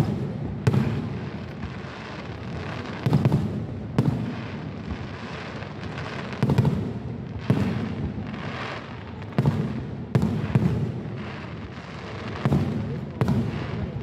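Aerial fireworks shells bursting overhead, about a dozen sharp bangs at uneven intervals of half a second to two seconds, with a rumble from the display between them.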